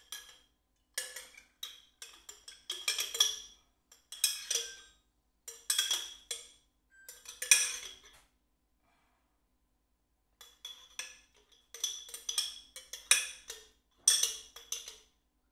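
Kitchen utensils knocking and clinking in quick bursts of several strikes each, with a short ringing after the strikes and a pause of about two seconds midway.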